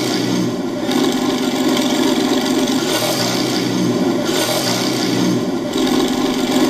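Sound unit of a 1/6 scale Tiger I model tank playing its engine sound effect through the model's speaker: a steady running engine whose note changes a few times.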